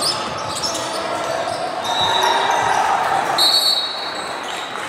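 Basketball bouncing on a gym court during play, with voices echoing in the hall. Two brief high squeaks come about two seconds and three and a half seconds in.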